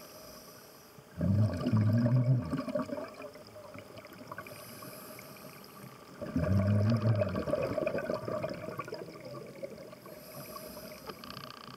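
Scuba diver breathing through a regulator underwater: two exhalations, each a loud burst of bubbling rumble about two seconds long, one about a second in and one about six seconds in, with fainter hisses of inhalation between them.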